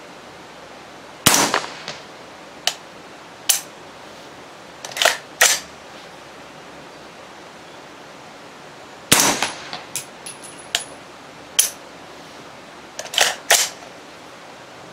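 Suppressed AR-pattern rifle firing with a Gemtech suppressed bolt carrier set to vent gas out the side: two loud, sharp reports about eight seconds apart, the first about a second in. Several shorter, fainter sharp cracks fall between and after them.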